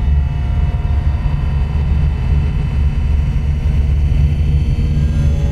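A steady, loud, low rumbling drone with faint held tones above it, without any break or impact.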